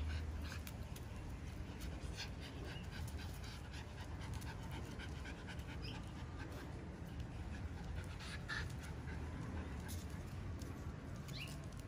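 Miniature Schnauzer panting, with scattered light clicks throughout.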